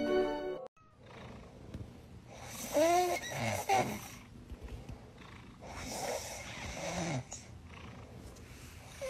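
A sleeping domestic cat snoring, two long rasping snores about three seconds apart.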